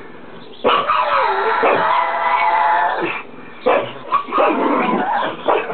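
Pugs howling and yipping to be fed: one long, wavering howl of about two and a half seconds, then a string of short yips and whines.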